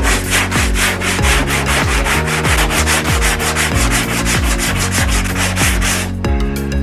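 Background music with a steady beat, over quick, even rasping strokes of hand sanding on body filler that stop near the end.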